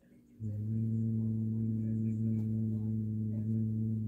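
A steady low-pitched hum with overtones, starting about half a second in and holding one pitch without wavering.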